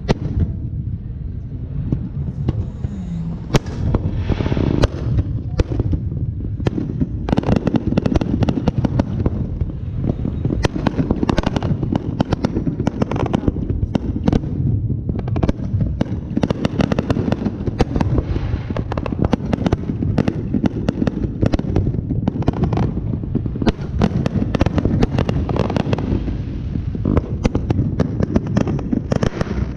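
Aerial fireworks going off in quick succession: a dense, continuous barrage of booms and crackling bursts from close range.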